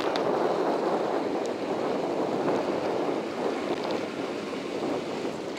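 Steady rushing wind noise on the microphone of a camera carried on a moving bicycle.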